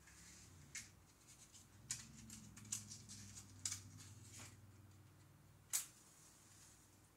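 Quiet, sharp clicks and scratches, about six spread over five seconds, from trying to light a candle; the loudest comes near the end.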